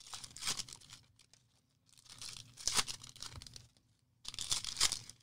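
Wrapping on a box of trading cards being torn open and crumpled, in three rustling bursts.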